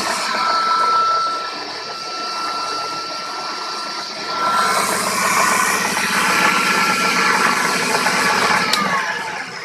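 Homemade table saw driven by a washing machine motor, running with no load and a steady whine, louder from about halfway. Near the end it is switched off and the whine falls in pitch as the blade spins down.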